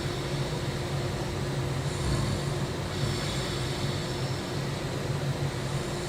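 A person snoring: a continuous low rumble, with breathier hissing passages that come and go every few seconds.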